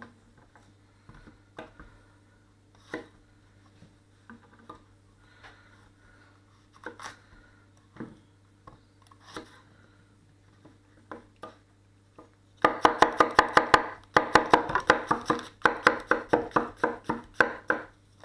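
A 230 mm Catcheside Forged Geometry gyuto chef knife cutting a courgette on a wooden chopping board. At first there are scattered light knocks of the blade on the board. About two-thirds of the way through comes a fast, loud run of chopping strokes, about seven a second, with a brief pause partway.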